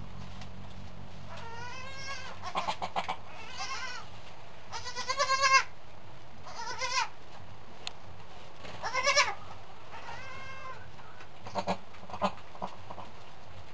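Goats bleating: about six wavering calls, the loudest about five seconds in, with a few short knocks in between.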